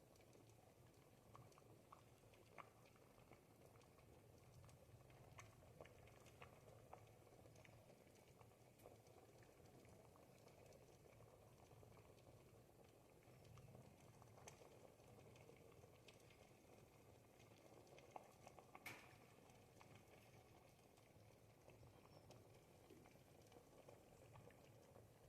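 Thick ribollita soup simmering faintly in a pot: a steady low bubbling with small scattered pops and plops, one a little louder about three quarters of the way through.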